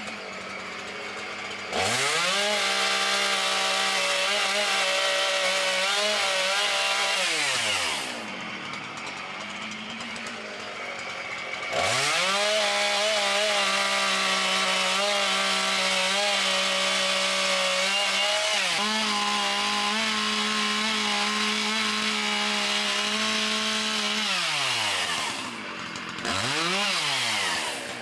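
Gas chainsaw revving up and cutting through tree limbs. There are two long cuts, the first a few seconds and the second over ten seconds, with the engine dropping back to idle between them, then a short burst of throttle near the end.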